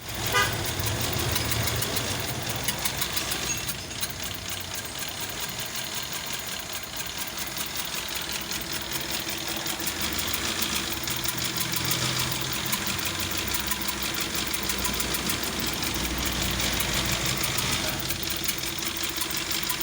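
Toyota 4A-FE inline-four engine running with a misfire, ticking steadily and unevenly.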